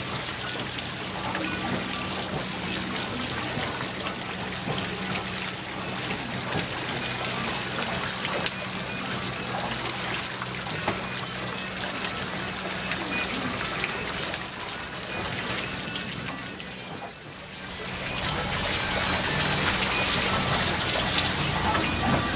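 Water splashing and dripping off the paddles of a turning wooden water wheel into the river, a steady rainlike patter. It dips briefly about seventeen seconds in, then comes back louder.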